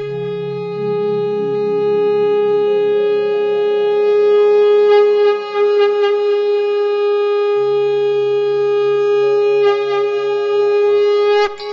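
Instrumental music: a long, held, reedy wind-instrument tone over lower notes that pulse and climb step by step in pitch, stopping suddenly near the end.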